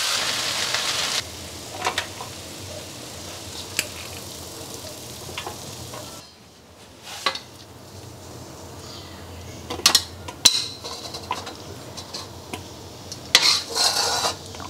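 Braised noodles with green beans and pork belly sizzling as they are stirred in a wok for about the first second, nearly cooked dry. Then scattered clinks and scrapes of a spatula against the wok as the food is scooped out into a stainless steel tray, with clusters of clatter about ten seconds in and again near the end.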